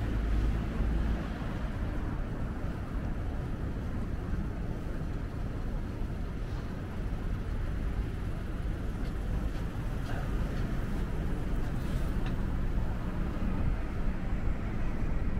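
City street traffic: vehicles running past, a steady low rumble under an even hiss.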